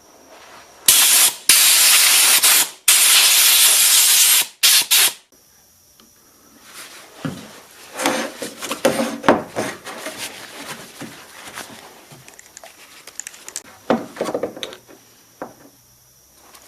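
Compressed air hissing in several blasts, each about a second long, blowing dust out of a dismantled router. After the blasts, light clicks and rubbing as the metal parts are handled.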